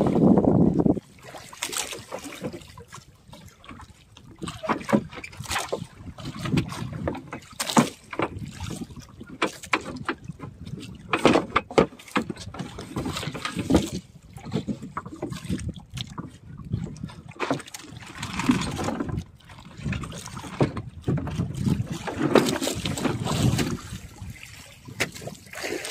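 Small fishing boat sitting at sea: water slapping and splashing against the hull, with wind and irregular knocks of gear on the boat.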